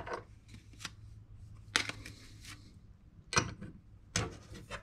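Hard plastic screw-down card holders being handled and set down on a table: several sharp plastic clacks spaced about a second apart.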